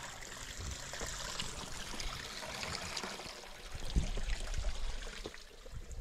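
A small stream of spring water trickling and flowing over rocks, a steady splashing rush, with a dull low bump about four seconds in.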